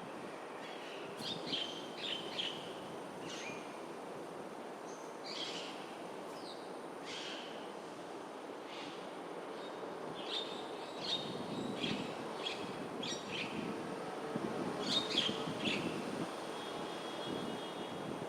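Birds giving short chirping calls in scattered clusters, over a steady low background rumble.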